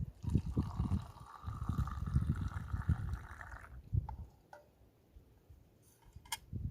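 Water pouring into a container for about three seconds, with low knocks of handling, then a sharp click near the end.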